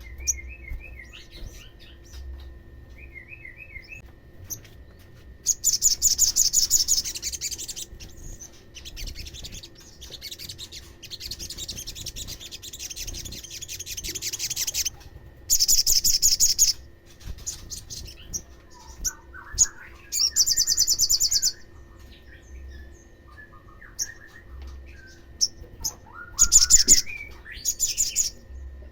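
Olive-backed sunbird singing: bursts of very high, rapid trills, several seconds at a time, separated by softer, lower chirping phrases.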